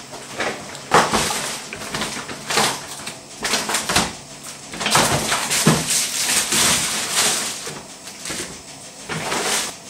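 Plastic carrier bags and food packaging rustling and crinkling as groceries are unpacked, with knocks of packs set down on a wooden worktop and a louder thump about a second in.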